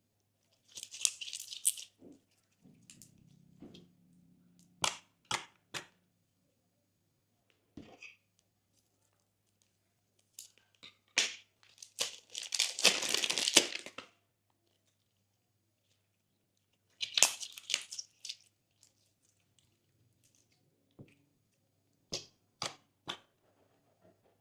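Glossy slime being pressed and worked by hand, giving crackly bursts of popping a second or two long and sharp clicks, three quick clicks about five seconds in and three more near the end.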